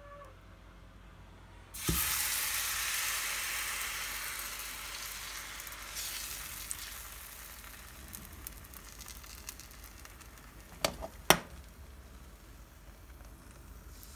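Thin cauliflower-and-chickpea paratha batter hits a hot oiled non-stick frying pan with a sudden loud sizzle about two seconds in, the sizzle then slowly dying down as the batter sets. Two sharp knocks about eleven seconds in.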